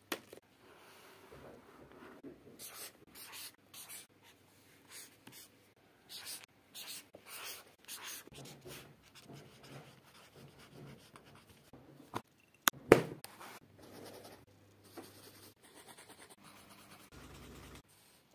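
Felt-tip highlighter writing on workbook paper in short scratchy strokes, with a few sharp clicks about twelve to thirteen seconds in.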